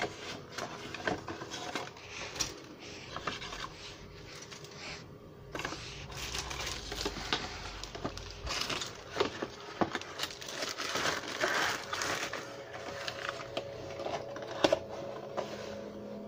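Hands handling a plastic model kit: the cardboard box, paper instruction sheet and plastic-bagged parts rustling, with many small taps and clicks.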